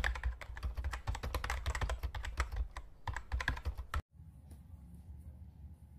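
Computer-keyboard typing sound effect: a rapid run of keystroke clicks lasting about four seconds, then cutting off suddenly. A faint low hum follows.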